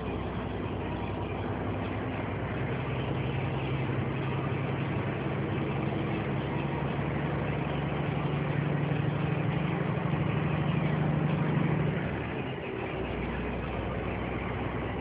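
Truck engine and road noise heard from inside the cab while driving. The engine's steady hum creeps slowly up in pitch as it pulls, then eases off about twelve seconds in.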